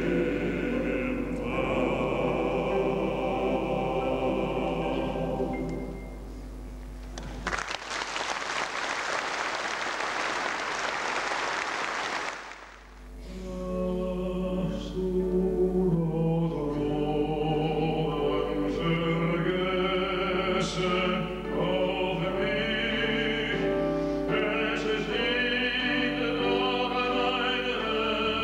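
A men's choir sings and holds a final chord, which ends about six seconds in. Audience applause follows for about five seconds and breaks off abruptly. Then a male soloist begins singing.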